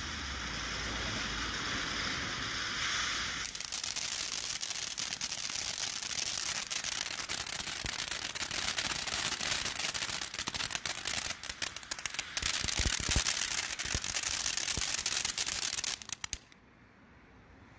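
Sky Bacon American Forever ground fountain firework hissing as it sprays sparks. About three and a half seconds in, it changes to a louder crackling effect, a dense run of sharp crackles over the hiss, which cuts off suddenly near the end.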